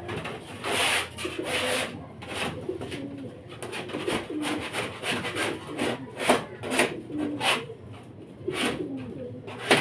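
Repeated rasping scrapes, a longer one about a second in and then shorter strokes, with racing pigeons cooing underneath; the scraping fits the pigeon loft being cleaned.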